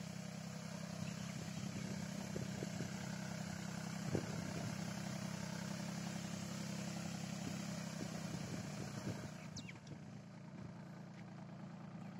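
Small tractor engine running steadily while it drives a tractor-mounted boom sprayer, with the hiss of the spray mist over it; the hiss drops away about nine seconds in. A single sharp knock about four seconds in.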